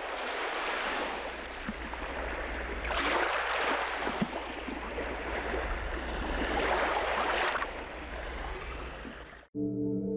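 Ocean surf: a steady wash of waves with two louder swells, about three and seven seconds in, over a low rumble. It cuts off suddenly near the end as music with steady ringing tones begins.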